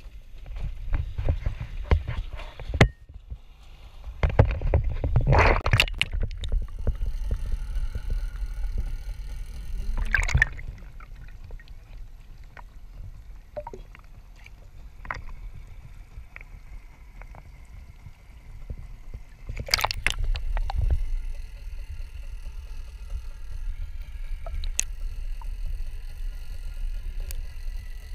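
Water splashing and sloshing at the side of a small boat as a caught fish is lowered into the river by hand and released, with a few louder splashes over a steady low rumble.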